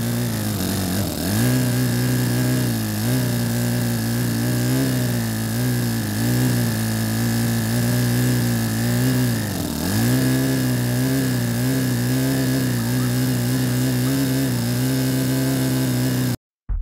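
Toyan FS-S100AT miniature single-cylinder four-stroke model engine running on 20% nitro RC fuel with its exhaust fitted. It holds a steady note whose pitch sags and recovers twice, about a second in and again near ten seconds, as the throttle is worked, and it cuts off abruptly at the very end. It doesn't reach the revs that were expected.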